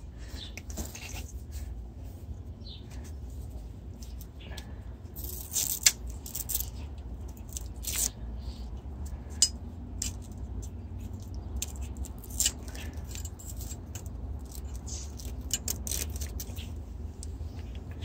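Hands handling an e-bike wiring harness and its braided nylon sleeving: rustling, scratching and scattered small clicks. There is a sharp click about six seconds in and another about nine and a half seconds in, over a steady low rumble.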